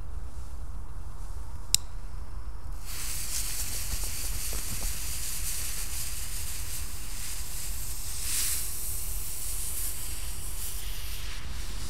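A sharp click about two seconds in, then the fuse of a Cobra 6 Super firecracker hissing steadily as it burns, throwing sparks, louder for a moment a little past halfway.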